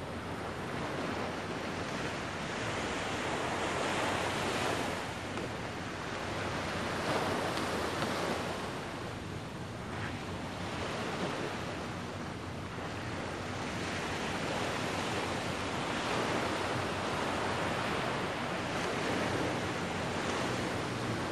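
Small waves washing onto a sandy beach, the surf rising and falling every few seconds.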